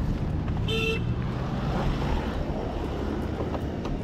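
Low steady vehicle engine and road noise, with one short horn beep about three-quarters of a second in.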